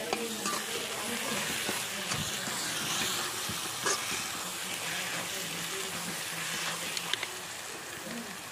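Chopped green chillies, garlic and spices frying and sizzling steadily in ghee in a steel wok, with a ladle stirring and a few light clicks of the ladle against the pan.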